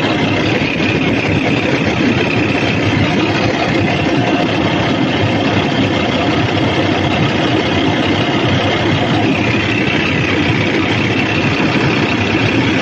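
Cummins ISX inline-six diesel engine running steadily at idle.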